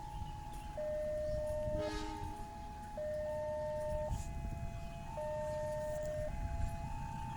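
Electronic railway level-crossing warning alarm sounding a steady two-tone high-low signal, each tone held about a second, over a low rumble of traffic. A brief horn toot about two seconds in.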